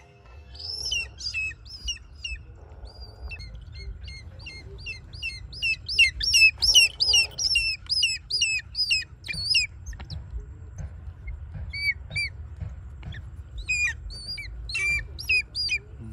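Hawk-eagle calling: a long series of short, high, down-slurred whistles, coming fast and loudest from about six to ten seconds in, then more spaced out toward the end.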